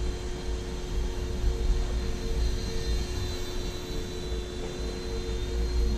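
Microaces Airco DH.2 micro RC airplane flying, its electric motor and propeller giving a steady hum and a thin high whine that climbs slightly about halfway through.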